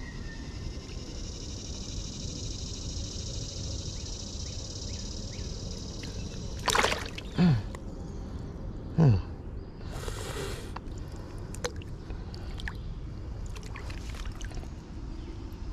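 Creek water sloshing around a landing net holding a trout being unhooked, with three sudden loud sounds at about seven, seven and a half and nine seconds in.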